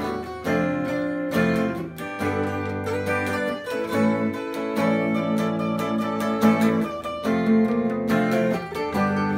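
Guitars playing a song together: strummed chords with picked notes ringing over them, at a steady tempo.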